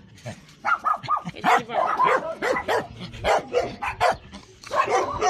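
Several dogs barking, short barks and yelps in quick succession that become almost continuous near the end.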